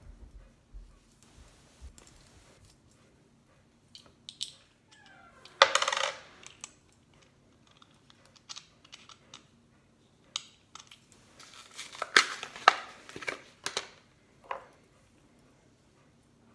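Small metal clicks, scrapes and rattles from handling a wristwatch's battery compartment and a coin-cell battery: a louder rattle about six seconds in, and a cluster of clicks near the end.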